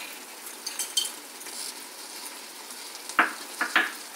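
Cooked mango pachadi simmering in a metal kadai with a steady soft hiss, while a steel spoon stirs it and knocks against the pan three or four times about three seconds in as jaggery is added.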